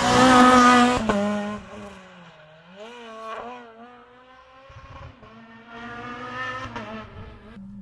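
Renault Clio rally car passing close at full throttle, loudest in the first second, then its engine fading as it drives away, the engine note dropping and climbing again several times through gear changes.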